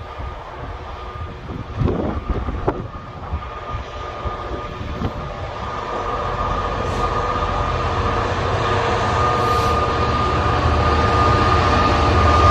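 Diesel-electric freight locomotive approaching, its engine noise and a steady whine growing steadily louder, with a few sharp clicks about two seconds in.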